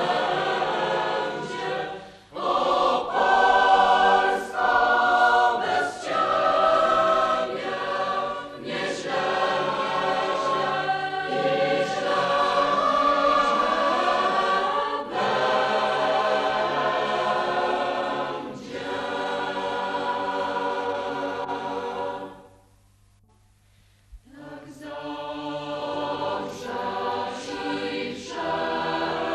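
Mixed youth choir of boys and girls singing in parts. The singing stops briefly about three-quarters of the way through, then starts again.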